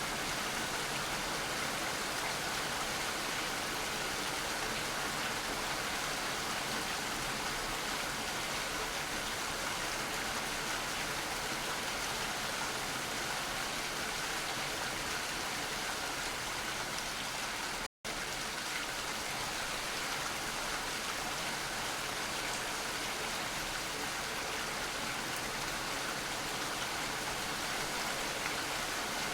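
Steady rain falling, an even unbroken hiss that cuts out for a split second about two-thirds of the way through, like a join in the recording.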